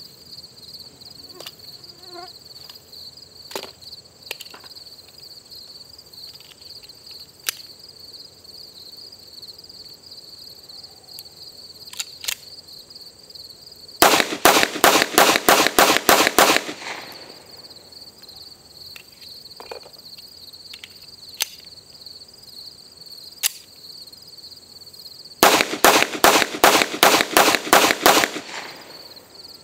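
Two rapid strings of .45 ACP pistol shots from a Taurus Commander 1911, about eight shots each over two to three seconds, the second string about eleven seconds after the first. A few faint clicks fall between the strings, and a steady high insect trill sits underneath.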